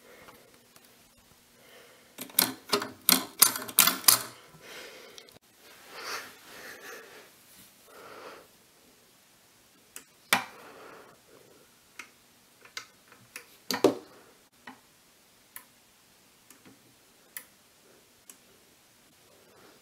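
Sharp, irregular metallic clicks and clacks from the mechanism of a Webster-Chicago 346 record changer being handled: a quick cluster of them about two to four seconds in, then single ticks scattered through the rest. Close breathing and a sniff come in between.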